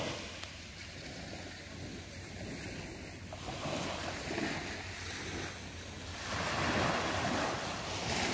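Small waves breaking and washing up a sandy beach, the wash swelling louder about six seconds in.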